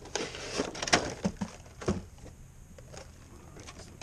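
Clear plastic clamshell tray sliding out of the open bottom of a cardboard statue box: a rustling slide with a few sharp crackles and knocks in the first two seconds, then fainter handling noise.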